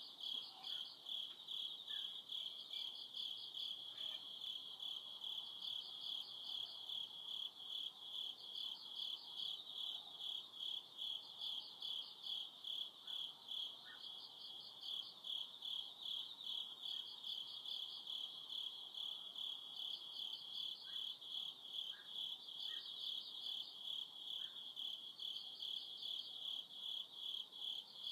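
Crickets chirping: one steady, rapidly pulsing high trill throughout, with a second, higher-pitched call joining in about every two seconds.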